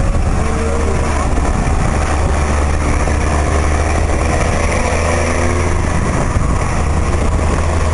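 Volkswagen 23-250E truck's diesel engine running steadily at an even pitch, a deep continuous drone.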